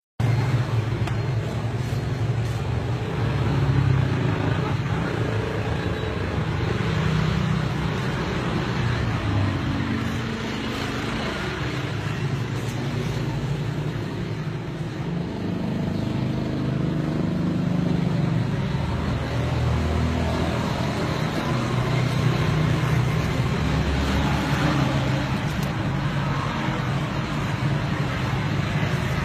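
Steady road traffic noise: vehicles running past, with a low rumble that swells and fades slowly.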